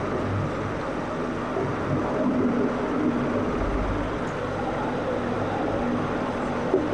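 Steady low background rumble with a faint continuous hum, and a single small tick near the end.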